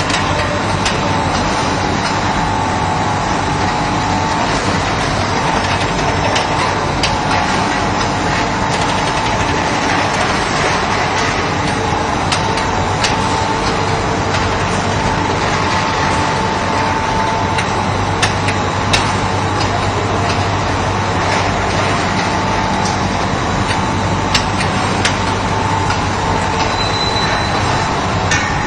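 Machinery of a candy-bar forming and packaging line running: a steady mechanical din with a faint steady whine and scattered sharp clicks.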